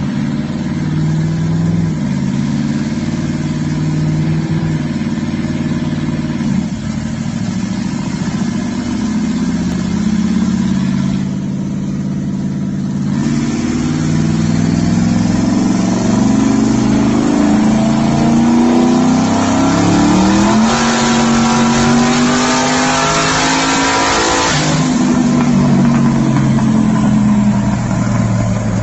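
Twin-turbocharged Ford 4.6 two-valve V8 in a Mustang GT running on a chassis dyno. For the first third it runs at part throttle with the revs stepping about. From about halfway it makes a long pull, the revs climbing steadily under a loud rush of exhaust and turbo noise, then lifts off near the end with the revs falling away.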